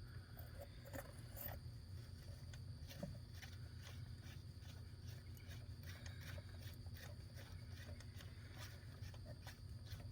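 Faint, irregular light clicks and ticks over a low steady hum, as a spark plug is worked by hand, trying to get it to thread into a Ford 5.4 3V cylinder head.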